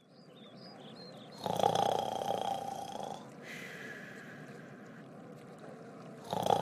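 Snoring: a loud snore about a second and a half in, followed by a quieter, hissing breath out, and the next snore starting near the end.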